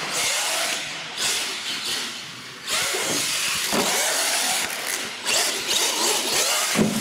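Radio-controlled monster truck's electric motor whining as it revs up and down while the truck drives and jumps, getting suddenly louder about two and a half seconds in.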